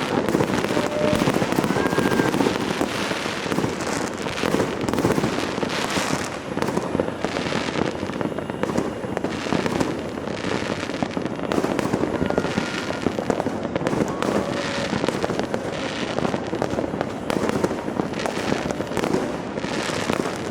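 Dense, continuous barrage of fireworks and firecrackers set off by many households at once: overlapping bangs and crackling with no pause, with a few short whistles.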